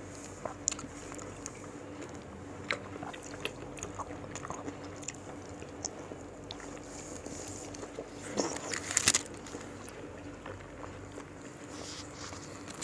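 Close-up mukbang eating sounds: biting and chewing mango slices dipped in rujak sambal, with wet crunchy clicks scattered throughout and a louder burst of crunching a little past halfway.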